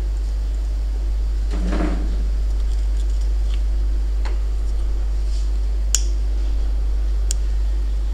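Steady low hum, with a short soft rustle about two seconds in and a few sharp clicks, two of them near the end.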